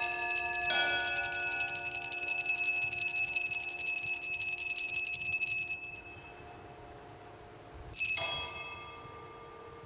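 Altar bells rung at the elevation of the host during the consecration: a continuous shaken ringing that stops about six seconds in, then one more ring about two seconds later that dies away.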